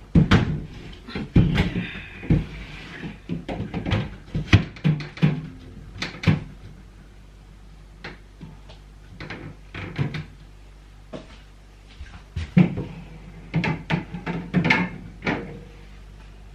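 Food items and plastic containers being handled and set into a fridge: a string of knocks, clicks and clatter. It is busiest in the first several seconds and again near the end, with a lull in the middle.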